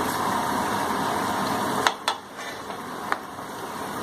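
Pressed spinach pakodas deep-frying a second time in hot oil, a steady sizzling hiss. There are a few sharp clicks about two seconds in and again about three seconds in.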